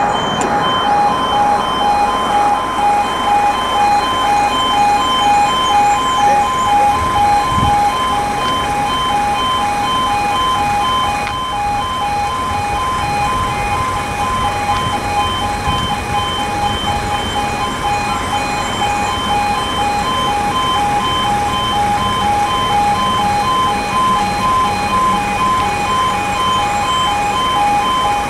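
Level crossing warning alarm sounding continuously, a steady two-tone warble repeating rapidly and evenly while the barriers are down, warning that a train is approaching.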